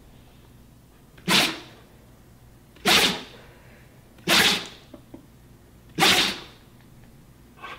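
A dog sneezing four times in a row, each sneeze short and sharp, about one and a half seconds apart.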